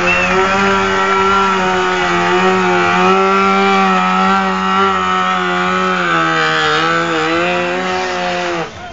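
Sport motorcycle engine held at high revs at a steady pitch during a smoky rear-tyre burnout. The pitch wavers and dips about six to seven seconds in, and the engine sound drops away sharply near the end.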